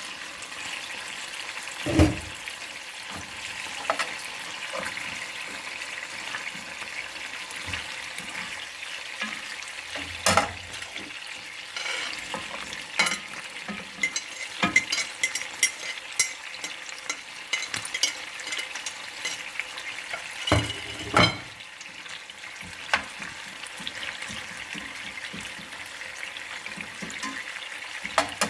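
Food sizzling steadily as it fries in oil in a pan while a utensil stirs it. Sharp knocks of the utensil against the pan come about 2 seconds in, around 10 seconds, and twice near 21 seconds, with lighter clicks in between.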